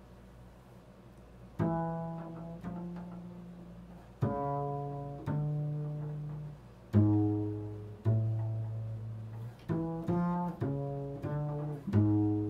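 An improvised, slow solo line of low pitched notes on a string instrument, each plucked or struck and left to ring and fade, about a dozen notes in all, beginning about a second and a half in.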